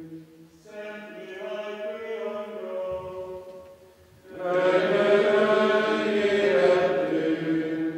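Choir of Benedictine monks chanting in men's voices: a quieter sung phrase, a short break about three seconds in, then a louder, fuller phrase.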